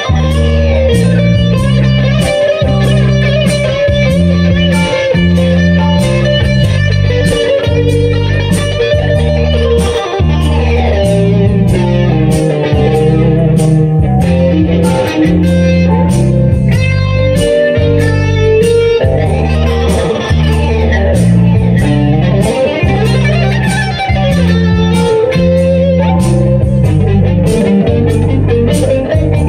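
Electric guitar playing lead licks over a soulful swing ballad backing track in G minor, with steady bass and chords underneath. Twice the guitar plays quick runs that climb and then fall.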